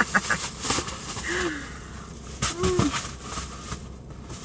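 A few small clicks, then two brief hummed sounds from a woman's voice, each rising and falling in pitch.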